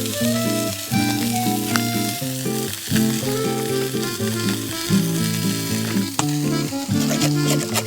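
Bone-in meat sizzling as it fries in a pan, with a few clicks from utensils, under background music of held notes.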